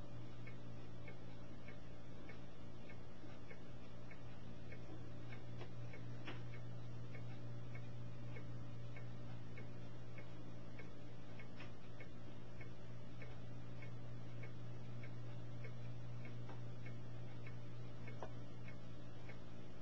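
A steady low hum with faint, regular ticking on top, about two ticks a second.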